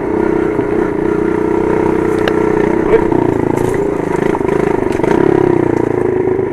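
110cc dirt bike engine running as it is ridden over a rocky trail, its pitch rising and falling with the throttle and swelling louder about five seconds in. A few sharp ticks of clatter come through about two to three seconds in.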